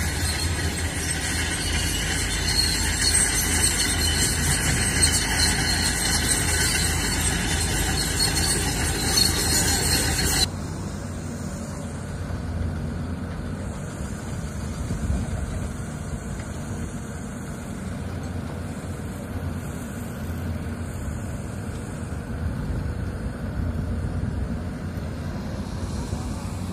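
Excavator running with a steady low engine rumble and a high-pitched metallic squeal over it; about ten seconds in the squeal stops abruptly, and the engine runs on more quietly.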